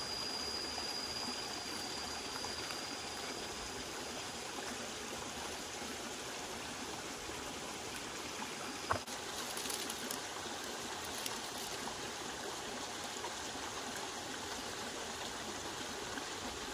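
Steady rush of flowing river water, with a thin high steady whine over it for the first few seconds and one sharp click about nine seconds in.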